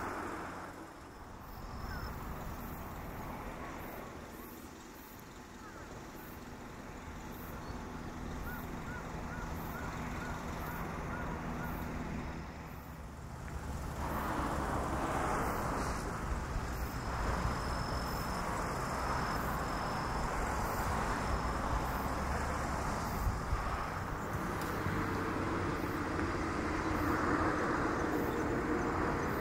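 Steady outdoor background noise of distant road traffic, a low rumble and hiss that gets louder about halfway through.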